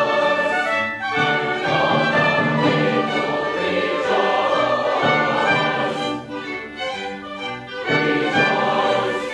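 Background classical music: a choir singing with an orchestra, with a quieter stretch in the last third before it swells again.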